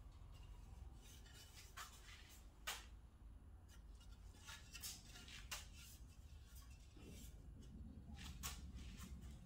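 Near silence: low room hum with a few faint, short clicks and rustles.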